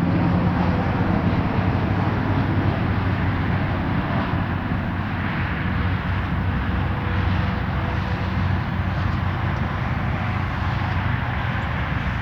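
Steady rumble and hiss of engine noise, like passing traffic, with a low drone. The siren has already fallen silent.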